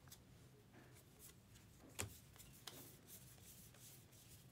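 Near silence with the faint rustle of 2023 Topps Allen & Ginter trading cards being handled, and a soft tap about two seconds in.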